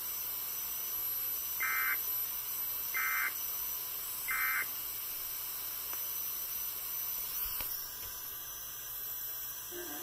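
Three short bursts of Emergency Alert System SAME data tones, about a second and a half apart, played faintly through a laptop speaker. Their shortness marks them as the end-of-message (NNNN) bursts that close an EAS alert. A steady hiss runs under them, with a faint click about seven and a half seconds in.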